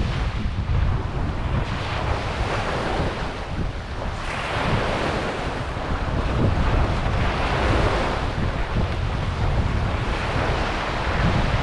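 Ocean waves washing onto a beach, a steady surf hiss that swells as a wave comes in about four seconds in, with wind buffeting the microphone as a low rumble.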